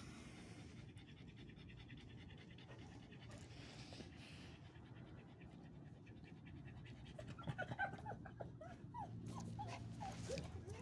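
Small dog panting quickly, then whining in a string of short, high cries over the last few seconds.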